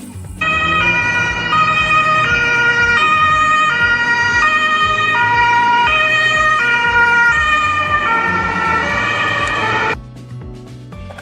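Electronic two-tone ambulance siren, the Japanese hi-lo "pee-poh" kind, alternating between a higher and a lower pitch with each tone held about three-quarters of a second. It starts about half a second in and cuts off abruptly near the end.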